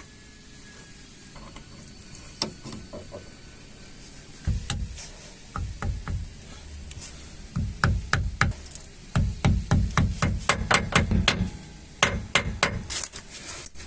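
Irregular metal clicks and knocks with low thuds as a crush sleeve and shims are fitted onto the pinion shaft of a GAZelle rear-axle differential. They start about four seconds in and grow denser toward the end.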